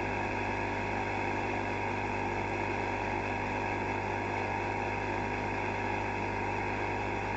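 Steady, unchanging electrical hum with a faint fan-like hiss from running bench equipment, with no distinct events.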